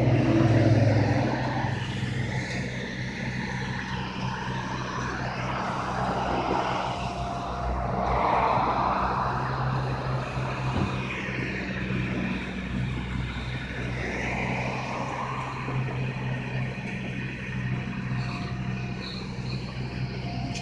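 Natural-gas paratransit minibus engine idling with a steady low hum, while passing traffic swells in and out, loudest about eight seconds in.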